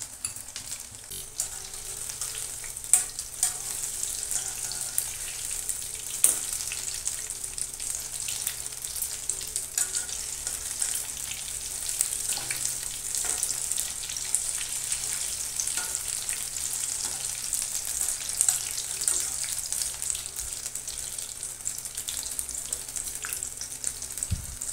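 Coated paneer sticks deep-frying in hot oil in a metal kadai, a steady crackling sizzle. A couple of sharp clinks from the wire skimmer knocking against the pan, about 3 and 6 seconds in.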